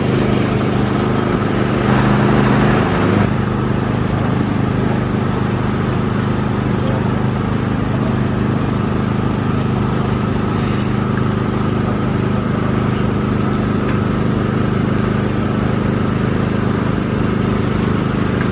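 Heavy diesel engine running steadily at low revs, a deep even drone that is a little louder about two to three seconds in.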